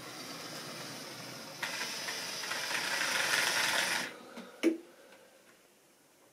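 Model steam locomotive running in on the track with a growing rumble. A steady hiss starts suddenly and cuts off after about two and a half seconds as it stops. A single sharp click follows.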